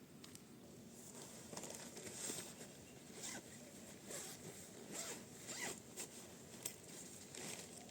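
A series of short rasping strokes, roughly one a second, starting about a second in.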